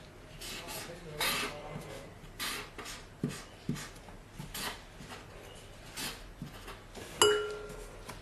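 Packaging being handled during an unboxing: a run of short scrapes and rustles, with one sharp click about seven seconds in that rings briefly.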